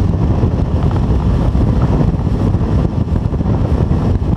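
Strong wind buffeting the microphone on a motorboat running fast through choppy water, with the hull and Evinrude 70 outboard underneath it as a steady rush.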